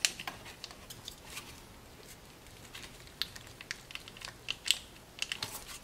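Small plastic clicks and rattles from a sealed electrical connector on a glow plug controller being gripped and worked by hand to unplug it. There are a few clicks at first and a quicker run of them in the second half; the connector is held by squeeze tabs and does not want to come off.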